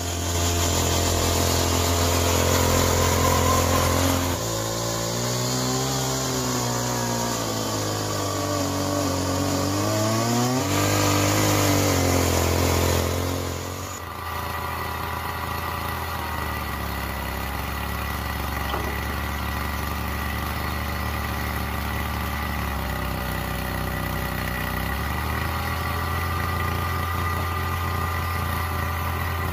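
Homemade RC truck driving over gravel: a steady low engine-like hum over tyre crunch, with a motor whine that rises and falls with its speed. About halfway through the sound switches to the steadier hum and thin whine of the homemade RC CAT 390F excavator's motors as it works its boom.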